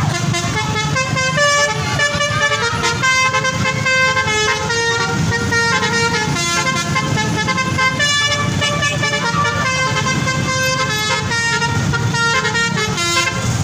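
A bus's Basuri 'telolet' multi-tone air horn playing a quick tune, stepping from note to note several times a second, over a low rumble.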